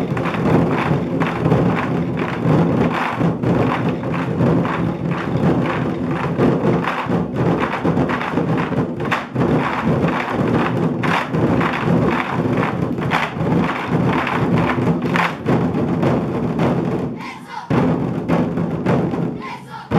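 A 24 Festive Drums ensemble of large barrel drums struck with wooden sticks, playing a dense, fast run of strokes. The drumming breaks off briefly near the end and comes back in.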